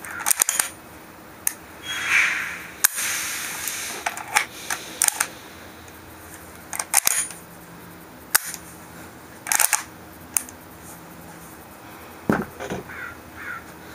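Sharp metallic clicks and clacks of a Remington Model 11 (Browning Auto-5 type) semi-automatic 12-gauge shotgun's action being worked by hand in a dry function test after reassembly. Single clacks come at uneven intervals, with a brief sliding rasp about two seconds in and a quick run of clicks near the end.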